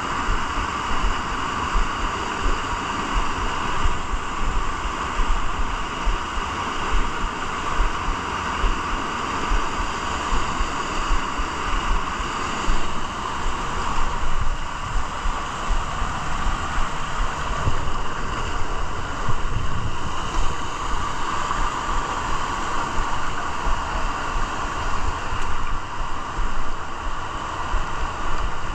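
A small waterfall and creek rushing over boulders: a steady rush of water, with low bumps of wind buffeting the microphone.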